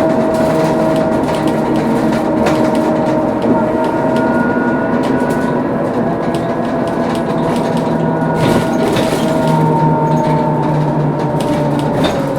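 Scania K230UB bus under way, its rear axle differential whining in steady high tones over the low hum of its DC9 diesel engine. Scattered clicks and rattles come from the body.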